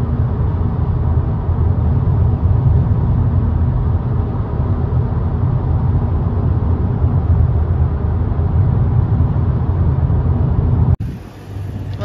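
Steady low road rumble inside a car cabin at highway speed, tyres and engine running. It cuts off abruptly near the end.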